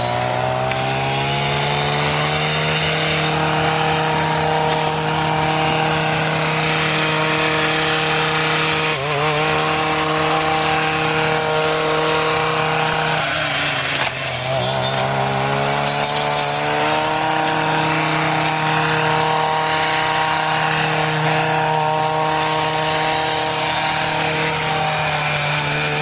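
Two-stroke petrol brushcutter running at high revs. The revs climb right at the start, dip briefly about nine seconds in and again around fourteen seconds, then rise back to a steady high speed.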